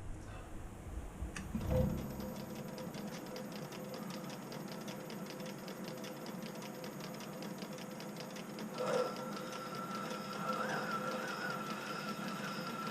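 Metal lathe switched on about a second in and then running steadily, a motor hum with a fast fine whirr. About nine seconds in there is a brief louder scrape, and a higher wavering whine joins and carries on.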